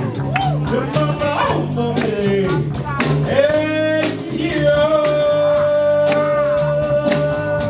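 Live jazz band playing, with a steady bass line and cymbals ticking time. A lead melody bends and swoops, then holds one long note for about three seconds near the end.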